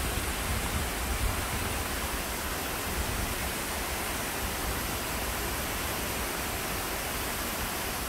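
Artificial waterfall pouring over a rock face into a pool: a steady rush of falling water.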